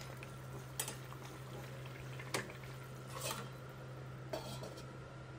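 Light clinks of stainless-steel cookware, a ladle and a steel lid knocking against the wok and pot, four separate clinks over a steady low hum.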